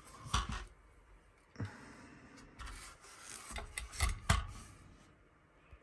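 Handling noise from a Kalashnikov USA KR103 side-folding AK rifle being moved on a mat: a few light clicks and knocks, the loudest a little after four seconds in, with rubbing between them.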